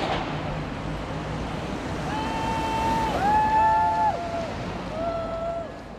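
Steady road traffic noise with wind on the microphone. From about two seconds in come several long held tones at two or three different pitches, some overlapping, the last ending near the end.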